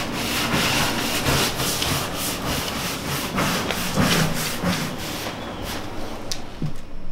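Broom sweeping gritty debris across a bare floor into a plastic dustpan, in quick repeated strokes of about two to three a second that thin out near the end, with a couple of light ticks.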